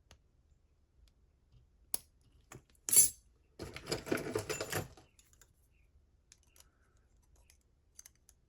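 Small metal clicks and scraping as a gut wrench works at the retaining clip on the back of a lock cylinder, with one loud sharp snap about three seconds in followed by a second or so of rattling and scraping.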